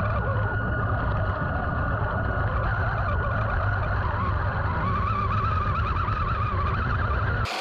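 3D-printed RC tank's 775 DC motors and gearbox whining under load with a heavy rumble from the tracks, picked up by a camera riding on the tank as it crawls over icy mud. The whine wavers and climbs in pitch about five seconds in.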